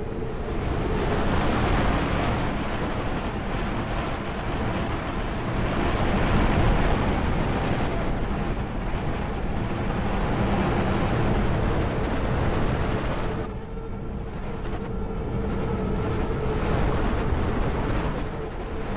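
Sound-design collage of digitally processed field recordings: a dense rushing noise that swells and ebbs, with a steady hum tone that comes back in about two-thirds of the way through.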